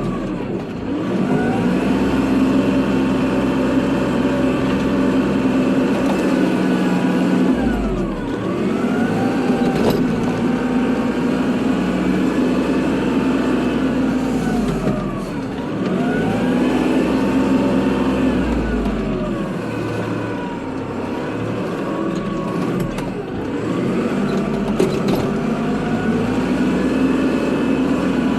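Kubota tractor's diesel engine running under load while plowing snow. Its engine speed sags and then climbs back four times, about every seven seconds.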